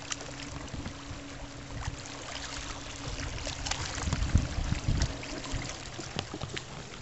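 Wind buffeting the microphone, gusting strongest about four to five seconds in, over a faint steady hum and light crackling.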